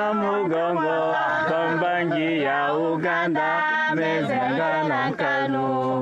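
People singing a chant without instruments, in long held notes that step up and down, with short breaths between phrases.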